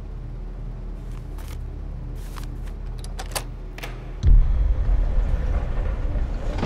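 Low, steady cinematic drone with a few sharp ticks and clicks, then a sudden deep boom about four seconds in that carries on as a heavy rumble.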